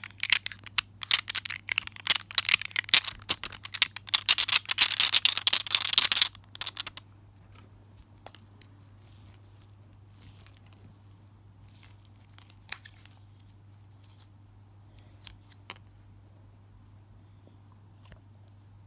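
Squishy fidget balls squeezed and worked in the hand: rapid crinkling and crackling for about six seconds, which stops abruptly, then only a few faint clicks. A steady low hum runs underneath.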